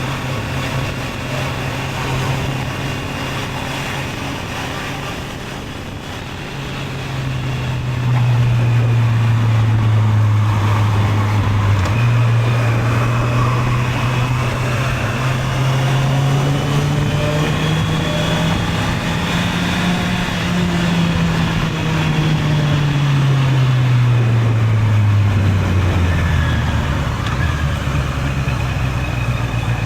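Honda CB650R motorcycle's inline-four engine running while riding. It gets louder about eight seconds in, its pitch climbs steadily as the bike speeds up, then falls away in the second half as it slows, picking up again near the end.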